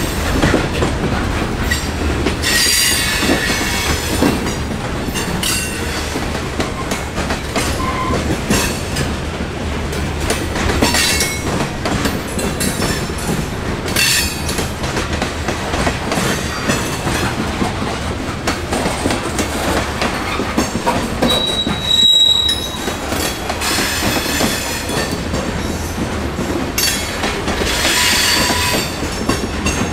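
A train's railroad cars rolling past on a curved junction track, wheels clicking over rail joints, with high-pitched wheel squeal coming and going every few seconds.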